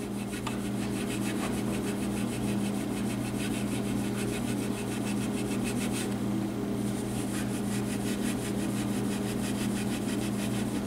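A hand-held pad scrubbing back and forth over a painted M1A rifle stock in quick, even strokes, scuffing off the loose old paint so the new coat won't lift. The strokes stop briefly about six seconds in.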